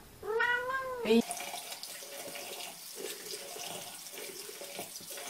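A cat meows once, a single call rising and then falling in pitch. Then, after a sudden change about a second in, a bathroom sink faucet runs steadily in a thin stream.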